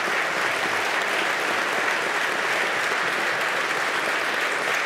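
Assembled legislators and guests applauding in a large chamber: dense, steady clapping at an even level throughout.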